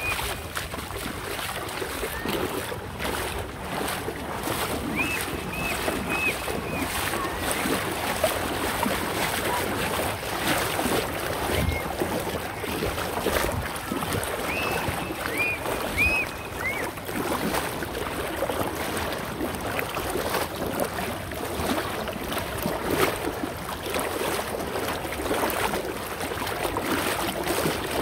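River water sloshing and splashing with a steady rush of flowing water. A bird calls twice in short runs of three or four high chirps, a few seconds in and again about halfway.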